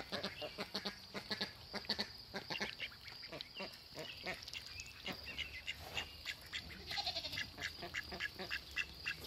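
A flock of four-week-old call ducklings quacking, a stream of many short, high calls in quick succession.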